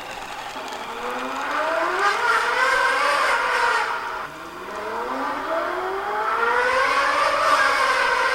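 LaFerrari engine sound accelerating twice: the pitch climbs for about three seconds, drops back about four seconds in as if shifting gear, then climbs again.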